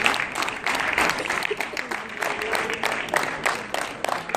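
Audience applauding, the clapping thinning out into scattered separate claps, with a voice heard briefly in the middle.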